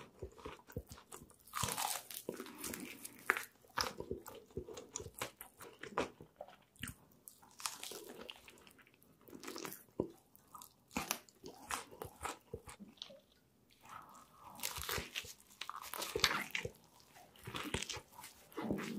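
Close-miked eating sounds: crisp crunching and chewing of fried chicken coating, in irregular clusters of sharp crackles. A big bite into a fried chicken burger comes near the end.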